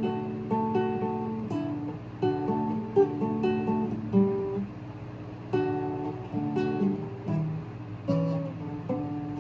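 Acoustic guitar playing an instrumental tune of plucked and strummed chords, with the notes ringing on and no singing.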